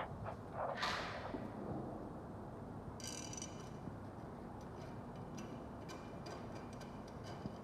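Light clicks and taps from smart door lock parts being handled, over a low steady background hiss. About three seconds in comes a brief metallic ring.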